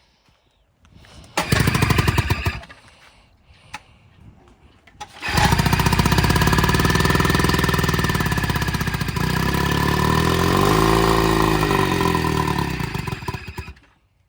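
A 10-horsepower outboard motor being started: it fires for about a second, dies, then catches about five seconds in and runs for some eight seconds, revving up and back down, before stalling abruptly. It will not keep running on its own.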